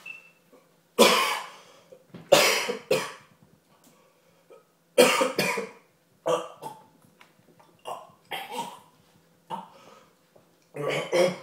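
A man coughing hard and repeatedly, about eight harsh coughs and gasps a second or two apart, his throat burning from a swallowed mix of chilli powder, smoked paprika, spice blend and vinegar.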